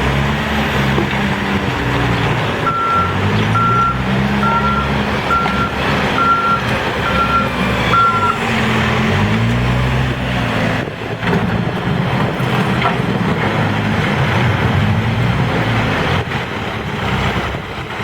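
Case 590 Super N backhoe loader's diesel engine revving up and down repeatedly as it works the loader. A backup alarm beeps steadily, about once a second, from about three seconds in until about eight seconds in.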